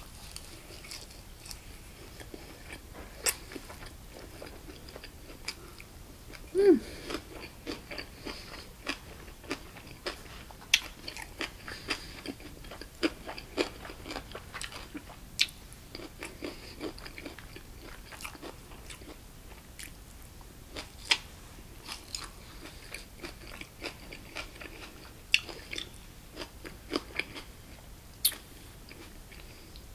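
Close-miked mouth sounds of someone eating a leafy ssam wrap of bossam (boiled pork): wet chewing with many short crisp crunches and clicks. There is a brief hummed vocal sound about seven seconds in.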